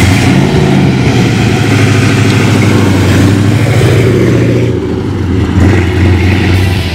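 1955 Chevrolet Bel Air's 383 stroker V8 with headers, accelerating as the car drives past, with a second surge of revs about five and a half seconds in.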